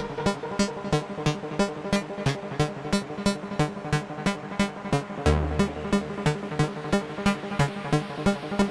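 AE Modular synthesizer patch playing sequenced electronic music: a fast, even run of short repeated notes over pitched sequenced tones. A deep low note comes in about five seconds in and holds for about a second.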